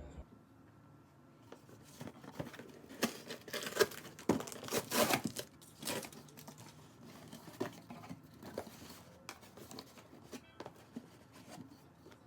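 Irregular rustling with scattered small clicks and knocks, busiest from about three to six seconds in.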